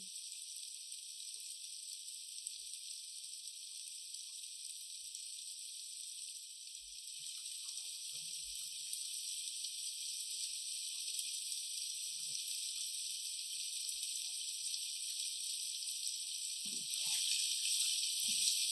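Rice, mushroom and onion stuffing sizzling steadily as it fries in oil, with faint scattered knocks of stirring that get louder near the end.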